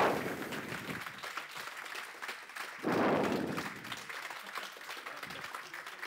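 Audience applauding: a crowd clapping that swells about three seconds in, then tails off.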